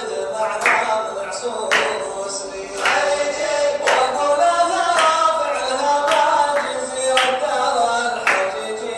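Khaleeji (Gulf Arabic) song: singing over a steady clapped beat, about one clap a second.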